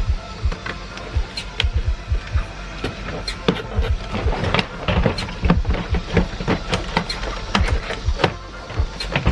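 Irregular clicks and knocks of door trim parts being handled and fitted, busiest in the middle, over background music with a steady low beat.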